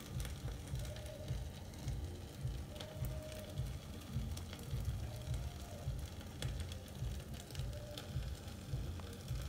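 Gizzard sauce with onions and peppers sizzling in the pan, with scattered pops and crackles.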